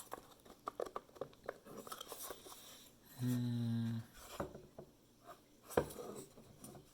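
Wooden puzzle box handled and worked at by hand: small scattered taps and clicks of its wooden panels and pieces, with a sharper knock near the end. About three seconds in, a short sustained "hmm" hum from the person puzzling over it.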